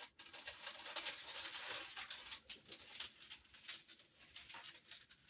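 Parchment paper crinkling and rustling as it is folded by hand: a quick run of dry crackles, busiest in the first three seconds, thinning to scattered rustles afterward.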